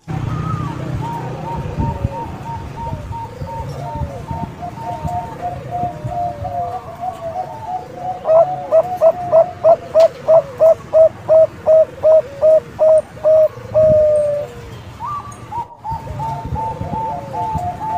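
Zebra dove (Thai-bred 'bangkok' perkutut) cooing: a run of soft, quick coo notes, then from about eight seconds a louder, evenly paced series of about three coos a second for some six seconds, after which the softer cooing resumes following a brief break.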